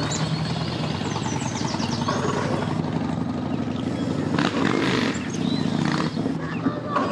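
Cruiser motorcycles riding slowly past, their engines running steadily.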